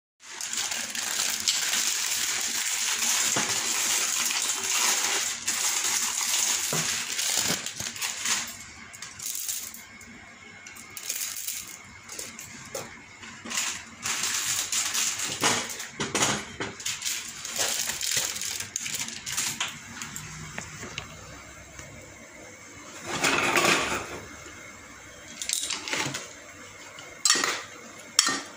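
Pasta boiling in water in an open pressure cooker pot, a steady hiss for the first several seconds. A metal ladle then knocks and scrapes against the pot as the pasta and Maggi noodles are stirred, with a few sharp clinks, loudest about two-thirds of the way in.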